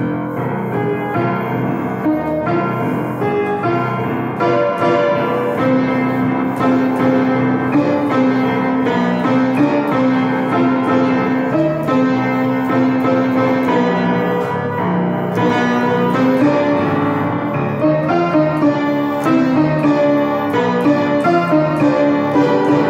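Piano music, a continuous flow of struck notes and held chords without a break.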